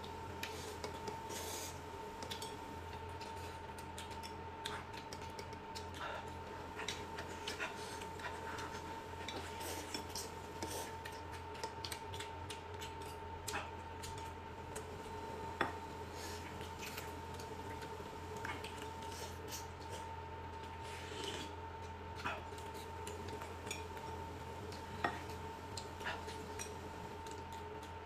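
Eating utensils clicking and clinking against bowls and dishes as a meal is eaten, in scattered light taps, over a faint steady tone.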